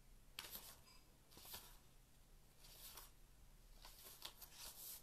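Faint, soft rustling of a book's cover and pages being handled, several short rustles a second or so apart.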